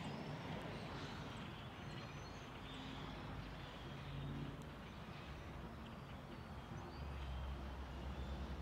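Faint, distant low rumble of a Boeing 777-300 jet airliner at cruising altitude. The rumble grows louder about seven seconds in, and small birds chirp faintly.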